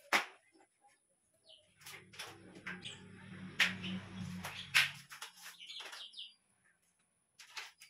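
Clinks, knocks and scrapes of metal and plastic shoe-rack parts being handled and fitted together, with a low hum from about two to five seconds in.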